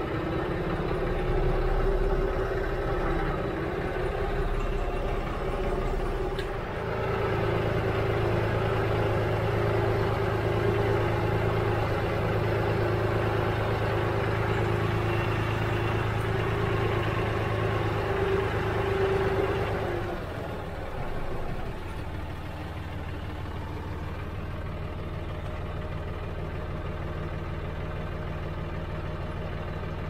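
Green John Deere-style compact tractor's diesel engine running from the driver's seat while hauling a round hay bale on the front loader. The engine speeds up about seven seconds in and settles back to a lower idle about twenty seconds in.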